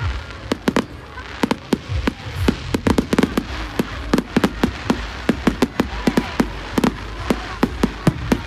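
Aerial fireworks bursting: a rapid, irregular string of sharp bangs and crackles, several a second, over a low rumble.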